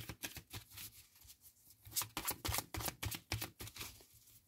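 An oracle card deck being shuffled by hand: quick, irregular runs of soft slaps and clicks as the cards are pulled through and knocked against each other, with a short lull near the middle.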